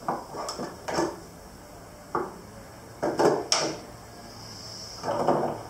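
A steel 6-inch square and hand tools knocking and scraping against the wooden tool rack of a tool chest as the square is fitted into a slot: a string of short knocks and scrapes.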